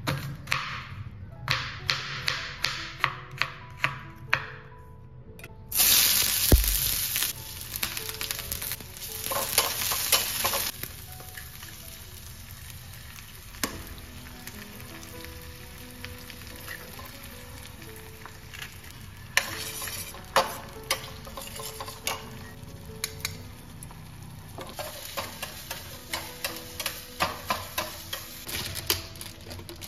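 A knife chops a red onion on a wooden cutting board, about two cuts a second. About six seconds in there is a sudden loud sizzle as food goes into hot oil in a steel pan, and the frying sizzles on. Near the end a metal spatula scrapes and taps quickly against the pan as an egg is scrambled.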